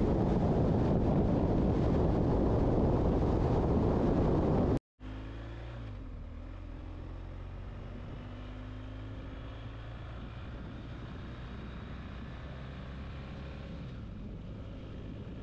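Wind rushing over the microphone of a camera on a moving vehicle, loud and steady. About five seconds in it cuts off and gives way to a quieter, steady engine and road hum with faint rising and falling tones.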